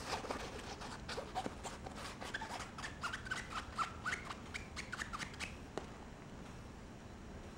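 A kitten pawing and treading on a crinkly waterproof nylon couch cover: a quick run of scratchy rustles and crinkles with a few short squeaks mixed in, stopping about six seconds in.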